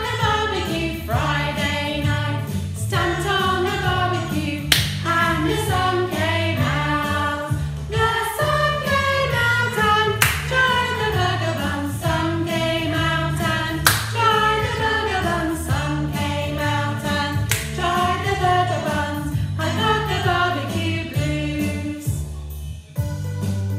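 Background music: a sung children's song over a backing track with a steady bass line and occasional percussion hits.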